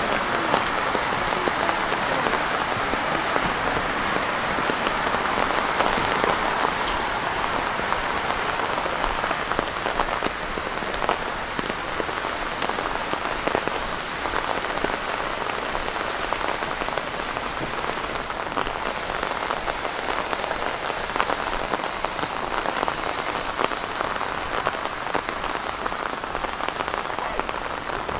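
Steady rain falling, a dense hiss of drops with many individual drops ticking close by.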